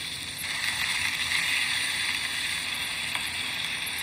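A sausage frying in oil in a pan, sizzling with a steady hiss that gets louder about half a second in.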